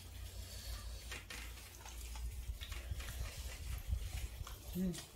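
Faint scattered taps and clicks of people eating by hand from steel plates, flatbread being torn, over a low rumble.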